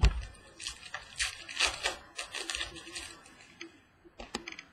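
Football trading cards being slid and flicked against one another as a hand sorts through a pack, a run of quick papery rustles. A sharp tap opens it and a few light clicks come near the end.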